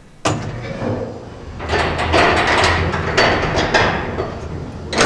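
An old passenger elevator's sliding doors and barred metal gate worked by hand, rattling and clanking along the overhead track, over a steady low hum.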